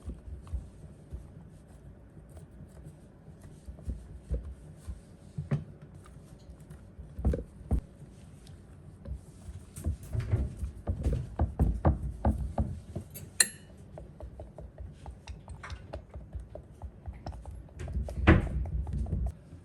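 Dishes and utensils being handled: irregular knocks, taps and clinks, busiest in the middle, with one sharp clink about halfway through.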